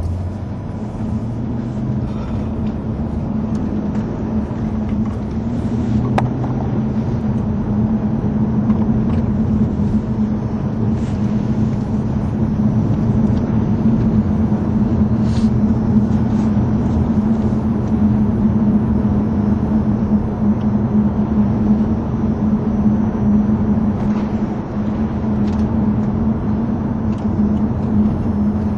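Vauxhall Monaro's V8 engine running at a steady drone while driving, mixed with tyre and road noise, heard from inside the car's cabin.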